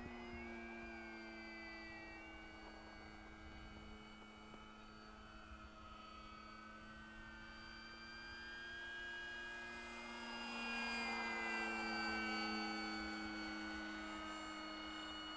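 The electric motor and propeller of an FMS Maule 1500mm RC plane in flight, giving a faint steady hum and whine with slowly gliding tones. It grows louder about ten seconds in as the plane passes closer.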